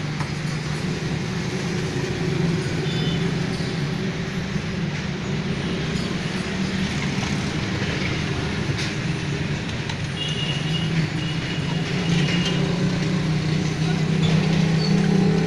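Steady low mechanical drone of running machinery, getting somewhat louder about twelve seconds in, with a few faint clicks and brief high tones over it.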